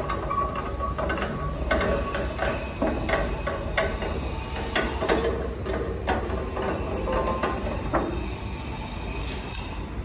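Irregular metallic clicks, clinks and knocks from metal parts of a hand-screw book press being worked, over a steady low background noise.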